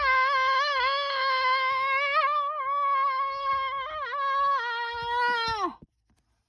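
A single high voice holding one long wavering wail for about six seconds, dipping in pitch a few times and sliding down as it cuts off near the end.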